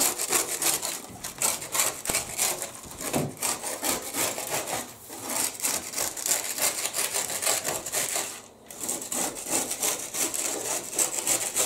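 Dry, crisp oven-baked minnows rustling and crackling as hands rake and scrape them together on a metal baking tray. The scratching is dense and continuous, with one brief lull late on.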